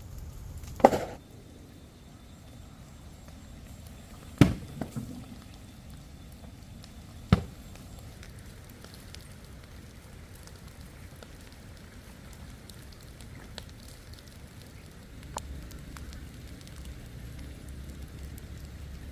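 Three sharp knocks, a few seconds apart, with a smaller knock just after the second, followed by a couple of faint ticks over a low steady background.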